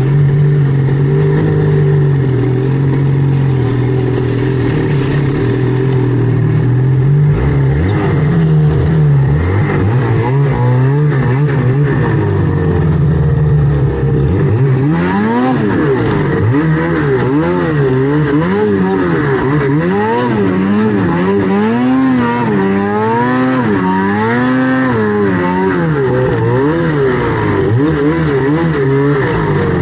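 Mountain snowmobile engine running at a steady throttle, then revving up and down over and over from about eight seconds in as the throttle is worked on and off.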